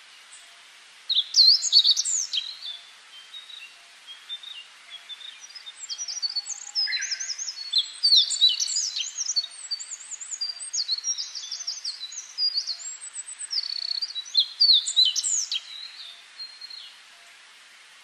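Wild songbirds singing: a busy run of quick, high chirps and trilled phrases that starts about a second in, is loudest then and again near the two-thirds mark, and stops about a second before the end.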